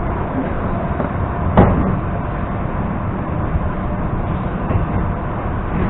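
EP2D electric train running along the track, a steady rumble of wheels and motors. About one and a half seconds in comes a single short, loud sound that drops quickly in pitch.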